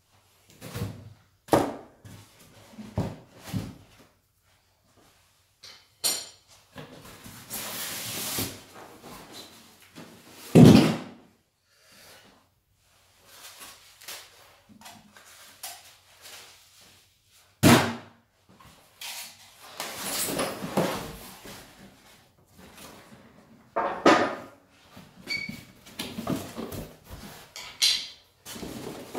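Polystyrene foam packing and a cardboard box being handled while a bandsaw is unpacked: rustling, scraping and scattered knocks. Two loud thuds stand out, about a third of the way in and just past halfway.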